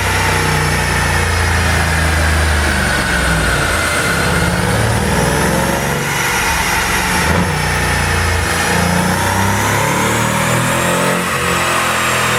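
Mercedes-AMG C63's 4.0-litre twin-turbo V8 running through its tuned exhaust, the engine speed drifting slowly up and down.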